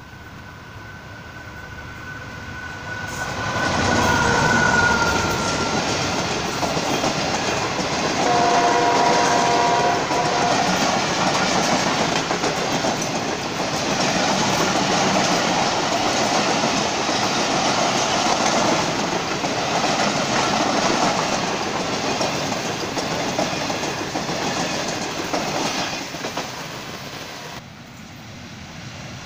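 A diesel-hauled passenger train running through at speed: a long, steady rush of coach wheels clattering over the rail joints, with a multi-note train horn sounding for about two seconds around eight seconds in. The rush drops away near the end as the last coach passes.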